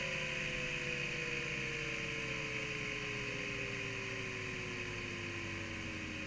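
Fujitsu M2903SGM seven-platter SCSI hard drive spinning down after the computer has powered off. A whine falls slowly and steadily in pitch over a steady airy hiss, gradually getting quieter.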